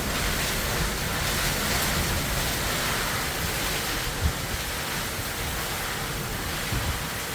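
Steady rush of Hurricane Milton's wind and rain, with wind buffeting the microphone in low gusts.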